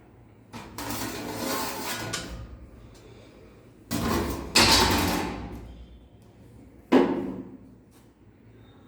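Heavy metal scraping and banging: a rough scrape lasting about two seconds, then a louder scrape with a bang midway, and a single sharp bang near the end that rings out briefly.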